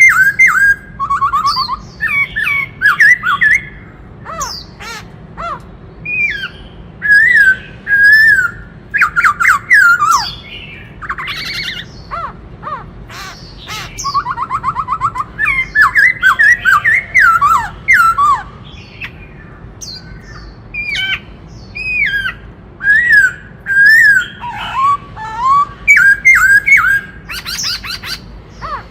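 Black-throated laughingthrush singing: a run of loud, varied whistled phrases that slide up and down, broken by fast rattling trills and harsh notes.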